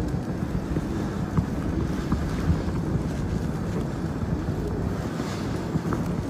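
Steady low rumble of wind buffeting the microphone in a snowstorm, with a few faint ticks.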